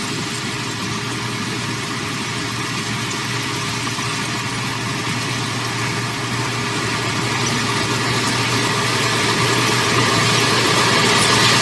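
Heavy earthmoving machine's diesel engine running steadily, growing gradually louder over the last few seconds.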